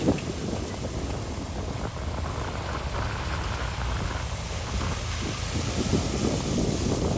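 Heavy construction machinery working gravel: a steady low engine rumble with an uneven crackling noise over it.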